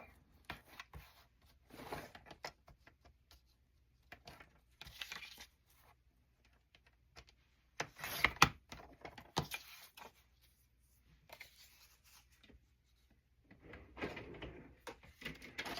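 Paper being handled and rustled, in intermittent short bursts with small clicks and taps and quiet gaps between them.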